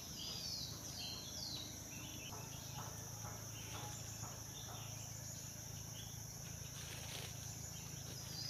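Steady high-pitched insect chorus in the forest, with a bird's short falling chirps in the first second or two. Faint rustling of dry leaves and the snare being handled in the middle.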